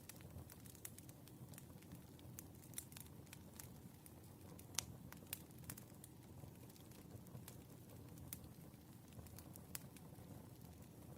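Burning firewood crackling softly, with irregular sharp pops and snaps over a low steady rumble of the fire; the loudest pop comes about five seconds in.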